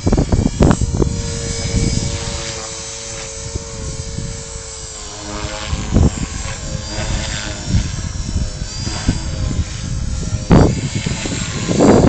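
Align T-Rex 450 electric RC helicopter in flight, its motor and rotor giving a steady whine that wavers slightly in pitch. Strong wind buffets the microphone in repeated low rumbles, loudest just after the start, about halfway through and near the end.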